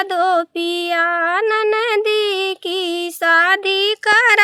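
A woman singing an Awadhi nach geet (folk dance song) unaccompanied, in long held notes with short breaks between phrases.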